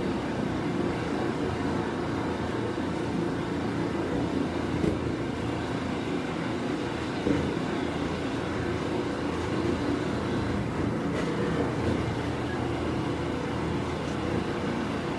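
Seibu 9000 series motor car MoHa 9205 running at a steady speed, with the noise of its traction motor and wheels; this car's traction motor is known for an abnormal noise. A couple of faint brief ticks come about five and seven seconds in.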